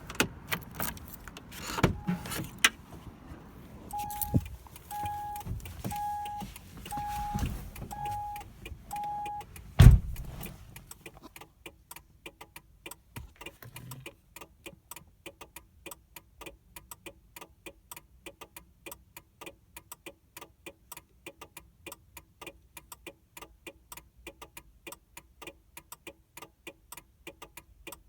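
Interior of a 2000 Mercury Cougar: a warning chime beeps about once a second, then comes a loud thump, and then rapid, even clicking, about four or five clicks a second. This clicking comes with the car refusing to crank after a new battery, a fault the owner traced to the PATS anti-theft system.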